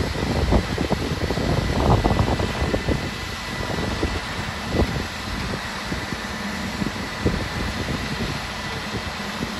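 Crane truck's engine running steadily, with a faint steady whine over it and scattered knocks and clunks, several in the first two seconds or so and single ones near five and seven seconds.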